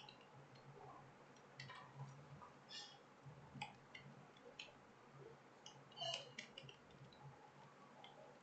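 Faint keystrokes on a computer keyboard during a typing test, clicking irregularly several times a second at most.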